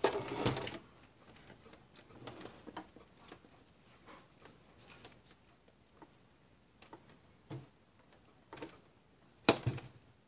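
Hands working on the plastic body of a Silhouette cutting machine, pressing a new cutting strip into place: scattered light clicks, taps and rubbing. There is a louder handling rustle right at the start and a sharp click about nine and a half seconds in, the loudest sound.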